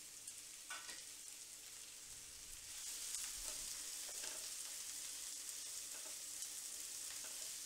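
Chopped onions sizzling in hot oil in a stainless steel pan. From about three seconds in they are stirred with a wooden spatula, and the sizzle gets a little louder.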